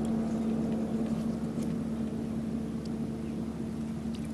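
Steady machine hum with one constant low drone, and a couple of faint small ticks.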